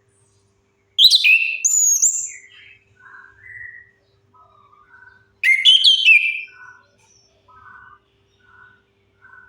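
Chestnut-capped thrush singing: two loud phrases of sweeping whistles, about one second in and again just past halfway, with softer short twittering notes between them and after.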